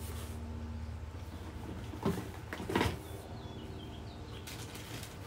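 Items being handled and moved about in a shipping box: two short knocks with packaging rustle about two and three seconds in, over a low steady background hum.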